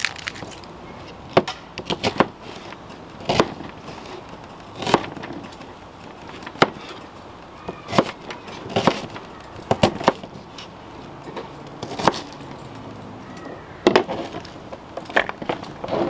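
Knife chopping an onion on a thin plastic cutting board: sharp, irregular knocks of the blade striking the board, about one every second or two, some in quick pairs.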